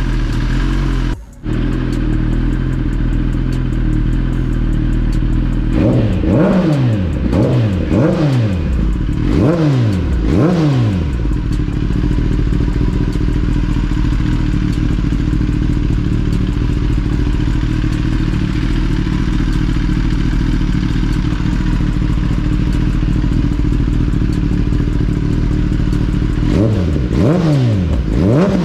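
2021 Kawasaki ZX-10RR's inline-four engine idling through a full Graves titanium exhaust. About six seconds in the throttle is blipped five or six times in quick succession, with more blips near the end. This is the engine's first start-up after the exhaust install.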